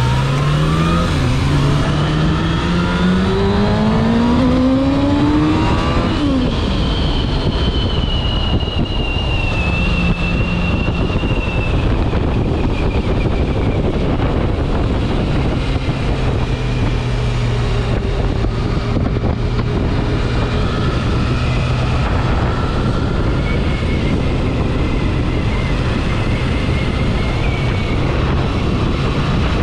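Sport motorcycle engine heard from the rider's seat, accelerating hard: the revs climb with a gear change about a second in, rise steadily for about five more seconds, then drop sharply at the next shift. After that the bike cruises at a steady engine note with rushing noise.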